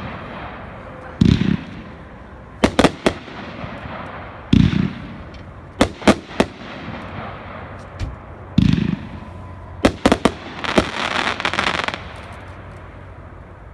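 Cutting Edge 'Big Power' 500-gram consumer fireworks cake firing shot by shot: three deep launch thumps, each followed a second or so later by a cluster of sharp bursting reports as the shell breaks. The last break is followed by about a second of crackle.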